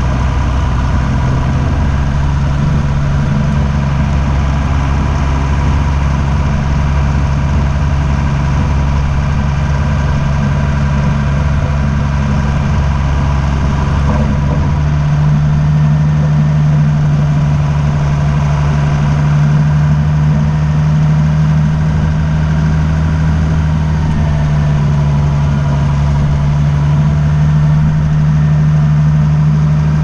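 Vehicle engine running steadily while driving along a gravel road, a low even hum whose pitch rises slightly about halfway through.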